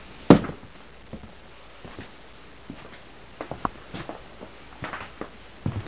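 One loud knock just after the start, then light footsteps and scattered small knocks of someone walking into a small room.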